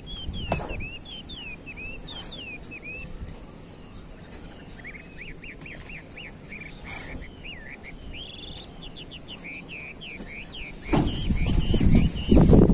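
A small bird chirping in runs of quick notes that rise and fall, while a hand trowel scrapes through potting soil. About eleven seconds in, the scraping and churning of the trowel through the soil in a plastic tray grows loud and covers the chirping.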